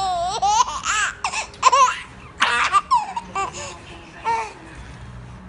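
Baby laughing in a run of short, high-pitched bursts that stop a little after four seconds in.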